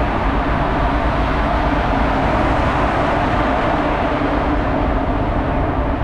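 Strong wind blowing across the microphone on the open deck of a ship under way: a loud, steady rush with a low rumble beneath it.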